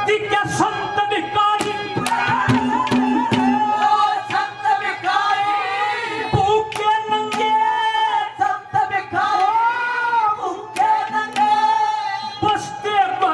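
Live Haryanvi ragni: a male singer sings long, drawn-out melodic lines over drum accompaniment and a steady held instrumental note.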